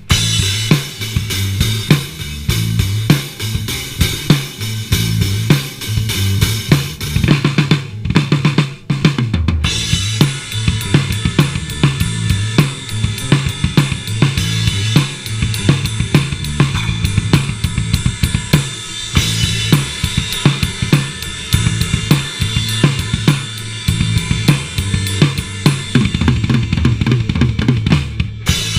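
Live band jamming on a very basic riff: a full drum kit (kick, snare and cymbals) plays a steady beat over a low repeating line. The highs drop out briefly about eight seconds in. The sound is picked up by a chest-mounted GoPro's own microphone.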